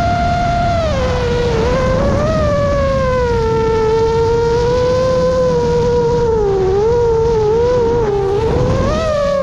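Chimera 7.5 FPV drone's motors and propellers whining, the pitch following the throttle: it drops about a second in, wavers up and down, and climbs again near the end, over a rough rush of prop wash and wind.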